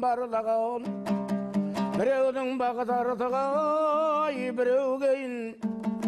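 A man chanting a Kazakh zhir in a strong voice with heavy vibrato, accompanied by a strummed dombra. The dombra strums alone for about a second early in the clip, the voice then holds a long rising and wavering line, and the dombra strums again near the end.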